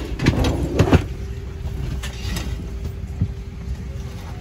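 Cabin ambience of a Boeing 757-300 on the ground during boarding: the air system gives a steady low rumble with a steady hum. A few knocks and bumps come close together in the first second.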